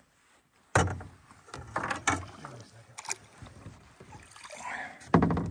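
A sudden thump about a second in, then scattered knocks and splashy noises from the canoe as the angler in the bow strikes and plays a bass hooked on a fly-rod popper.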